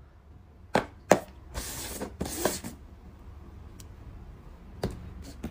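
Paper cups set down upside down on a tabletop with two sharp taps, then shuffled about with two short scraping sounds, and two more light taps near the end.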